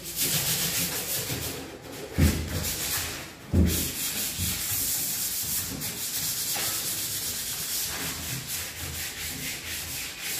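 Hand scuff sanding of a varnished solid-wood cabinet with 180-grit sandpaper and a sanding sponge, in quick back-and-forth rubbing strokes that dull the old finish for painting. There are a couple of heavier bumps about two and three and a half seconds in.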